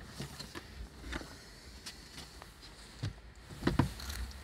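Handling of an SUV's trunk luggage cover: scattered light plastic clicks and rustles, with a few louder knocks about three to four seconds in.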